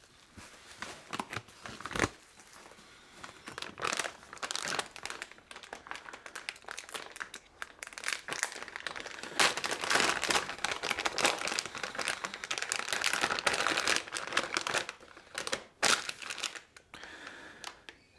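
Plastic packaging crinkling and rustling as a circuit board is unwrapped by hand, heaviest in the middle stretch, with a single sharp knock about two seconds in.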